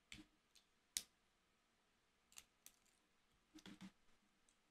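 Faint, scattered clicks and cracks of shellfish shell being picked apart by hand, the sharpest about a second in and a short cluster near the end.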